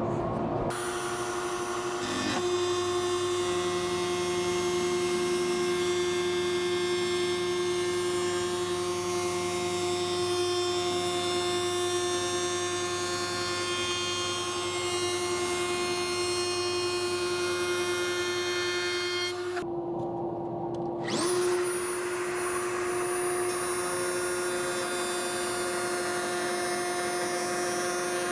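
Drill press motor running steadily with a constant hum while drilling dowel holes. About two-thirds of the way through, the sound breaks off briefly and the motor spins back up with a rising whine.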